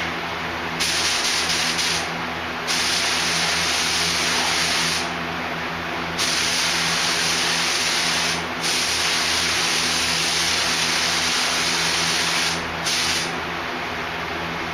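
Automotive paint spray gun hissing with compressed air as a coat is laid on, triggered in about five passes of one to four seconds each, the last one brief.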